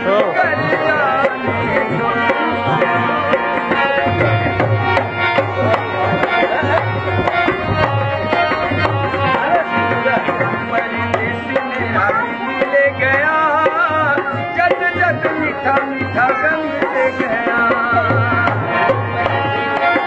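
Rajasthani folk music for a kathputli puppet show: a hand drum plays a steady, driving rhythm under a wavering, warbling melody line.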